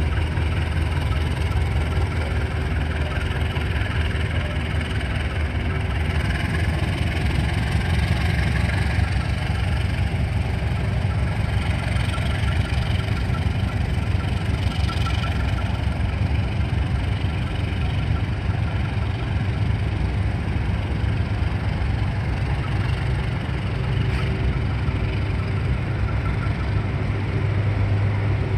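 CC201 diesel-electric locomotive's engine running steadily, a continuous low drone with no horn sounding.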